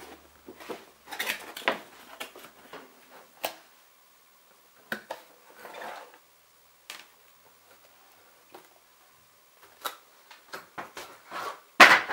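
Handling noise as a plush toy dog is pulled out of its cardboard box: irregular rustling and scraping of the packaging with scattered clicks and knocks. A louder knock comes near the end as the toy is set on the table.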